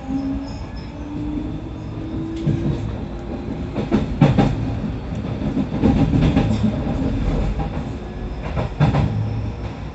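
Keio 5000-series electric train running, with a traction-motor whine rising in pitch over the first few seconds as it accelerates. Under a steady rumble, the wheels knock over rail joints in close pairs three times.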